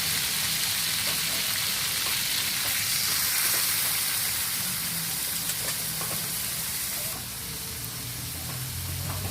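Food sizzling in oil in a pan while it is stirred, with light scattered clicks of the utensil. The sizzle quietens somewhat about seven seconds in.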